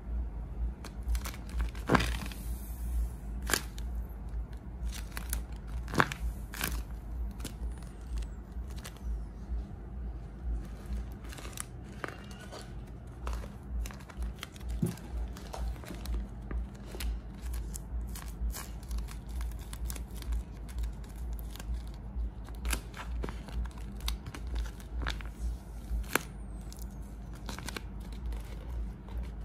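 Handmade glossy paper squishies being squeezed and handled, their paper crinkling and crackling in short, irregular bursts over a low steady hum.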